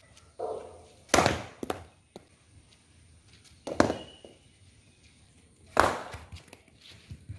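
A cricket bat striking a cricket ball three times, about two seconds apart, each a sharp crack with a short ring-off. Fainter knocks between.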